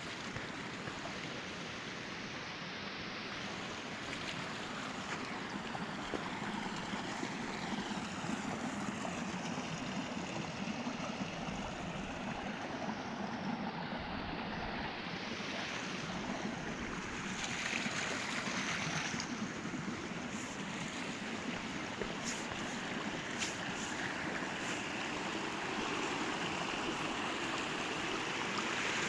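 Steady rushing of running water, with no break.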